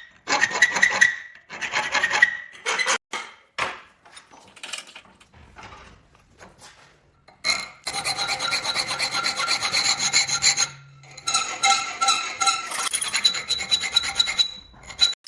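A file rasping on a steel blade. It begins with a few separate strokes, then turns into quick, continuous scraping from about halfway in, with a steady metallic ring and a short pause just past the middle.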